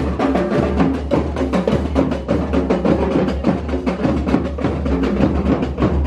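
Background music with a busy, steady percussion beat over a constant bass.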